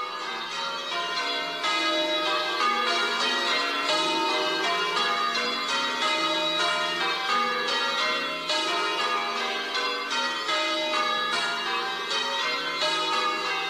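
Church bells ringing changes: a ring of tower bells struck one after another in quick succession, their tones overlapping. The ringing swells over the first couple of seconds and then holds steady.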